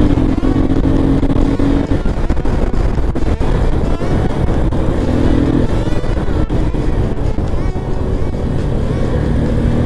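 Motorcycle engines running, a steady loud rumble with a short held hum three times, the first and longest at the start.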